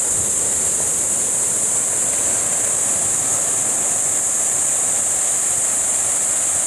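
Surf breaking and washing up on a rocky sand beach, under a steady high-pitched insect drone that does not let up.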